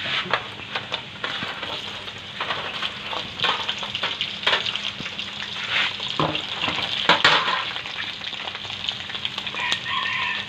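Pork fat pieces deep-frying in hot oil in a wok: a steady sizzle, broken by scrapes and clicks as a fork and a wooden spatula stir them, the sharpest about seven seconds in.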